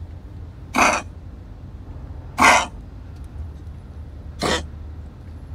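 Elderly beagle coughing three times, short coughs about two seconds apart. It is a chronic cough of over two months that an X-ray traced to problem lungs, made worse by excess fat.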